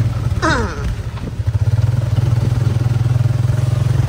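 Motorcycle engine running steadily while riding, getting louder from about a second and a half in. A brief falling tone sounds near the start.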